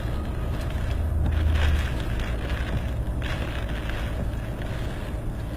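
Steady rumble of a car on the road, with strong wind buffeting it, heard from a dashcam inside the cabin; the rumble swells for a moment about a second in.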